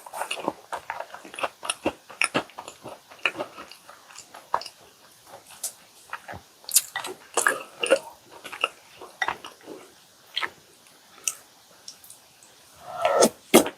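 Close-miked chewing and biting of chocolate chip cookies dunked in milk: a steady run of irregular soft, wet clicks and smacks, with a louder, fuller mouthful right at the start and again near the end.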